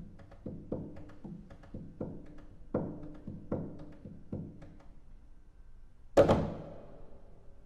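Solo cello played percussively: a string of short knocked or plucked strokes, a few a second, each with a brief pitched ring. After a pause, about six seconds in, comes one much louder, sharp snap that rings on and fades.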